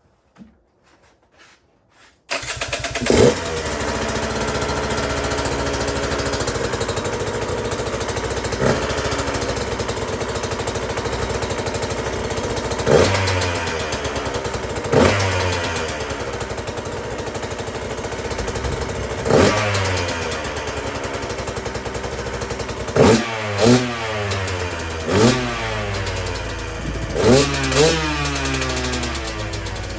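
2023 Husqvarna TE150 two-stroke dirt bike engine starting about two seconds in, then running at idle with about ten quick throttle blips whose pitch falls back to idle each time, exhausting through its repaired expansion chamber.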